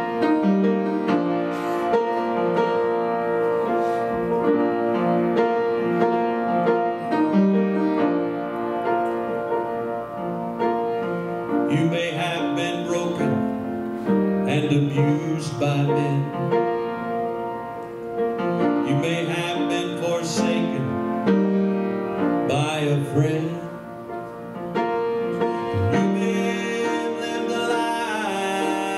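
Piano playing the accompaniment of a gospel song, with held chords changing every second or so.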